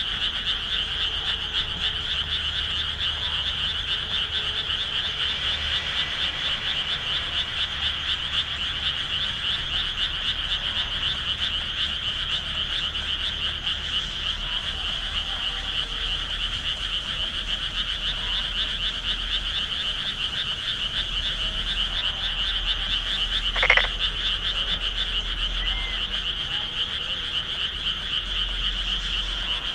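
A dense chorus of many frogs calling together as a continuous fast, high-pitched pulsing. About three-quarters of the way through, one short louder sound stands out over the chorus.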